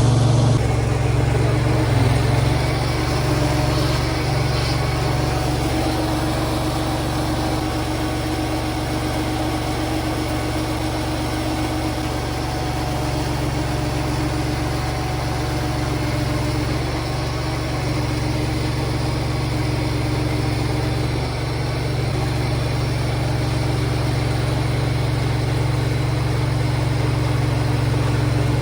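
Engine of a small machine running steadily at idle, just after being started.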